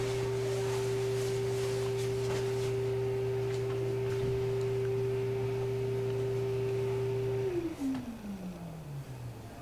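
A steady, pure mid-pitched tone over a low hum. Near the end the hum drops out and the tone slides smoothly down in pitch. Faint scratching of pens on paper shows through in the first few seconds.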